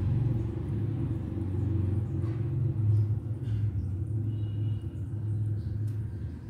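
A low, steady rumble, with a few faint clicks.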